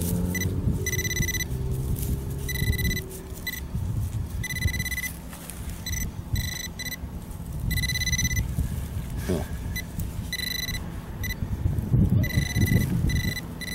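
Metal-detecting pinpointer beeping as it is probed into a dig hole over a buried metal target. The beeps are irregular, some short and some held for half a second or more, all at one steady high pitch. Wind rumbles on the microphone underneath.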